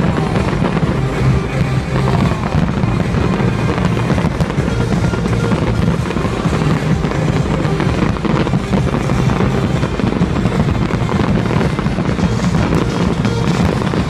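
A continuous fireworks barrage: rapid bangs and crackling bursts following so closely that they merge into a steady, loud rumble.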